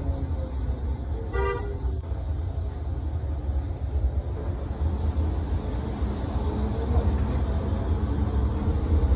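Cabin noise inside a Solaris Urbino 18 electric articulated bus under way: a steady low rumble, with a short horn-like beep about a second and a half in.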